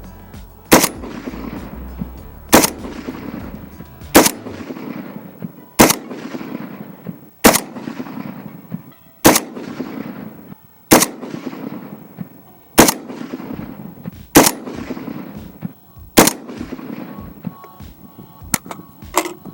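Palmetto State Armory AK-47 in 7.62x39 firing ten deliberate semi-automatic shots, about one every 1.7 seconds, each followed by a long fading echo: a string of steel-cased Red Army Standard and Tula ammunition fired for accuracy testing.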